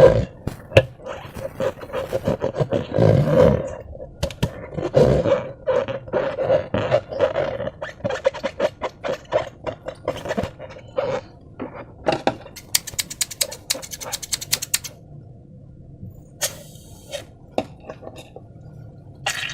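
Slime being squeezed and stretched by hand: a long run of sticky, wet clicks and squelches, with a quicker patter of sharp pops about two-thirds of the way through.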